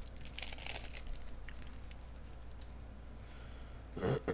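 Clear plastic wrapper of a hockey card pack crinkling as it is peeled off the cards, loudest in the first second, then quieter handling of the cards. A short, louder burst comes just before the end.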